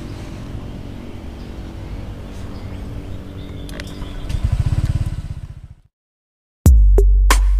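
An automatic scooter's small engine running at idle, swelling into a louder, rapidly pulsing throb about four seconds in before cutting off. Near the end a loud drum-machine music beat starts.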